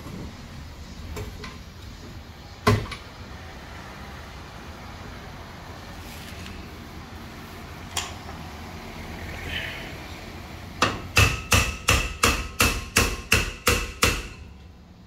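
Hammer striking metal at a car's rear brake during a brake-lining job: two single knocks, then a fast run of about a dozen ringing blows, roughly four a second, near the end.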